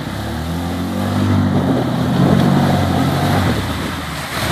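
Yamaha Rhino side-by-side's single-cylinder engine pulling hard as it wades through water, its note climbing over the first second or so and easing near the end, with water splashing and rushing around the wheels.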